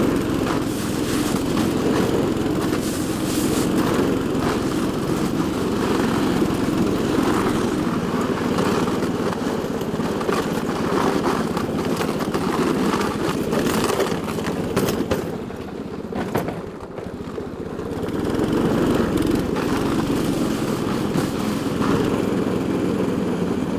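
Snowdog tracked snow machine's small engine running steadily under way across lake ice, dropping off briefly for a couple of seconds a little past the middle before picking up again.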